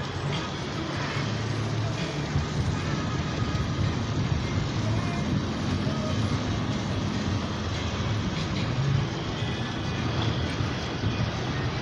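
Steady cabin noise inside a moving passenger van in heavy rain: engine and tyres running on a wet road.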